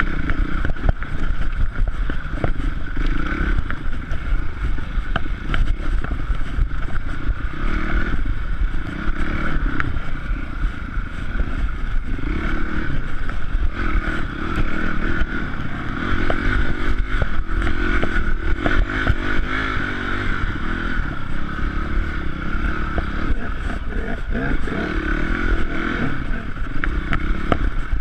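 Enduro dirt bike engine running, its note rising and falling with the throttle. Knocks and rattles from the bike jolting over a rough woodland trail run through it.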